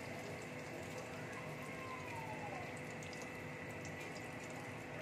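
A breadcrumb-coated soyabean cutlet deep-frying in hot oil in a wok, freshly put in: a steady sizzle with many small crackles and pops.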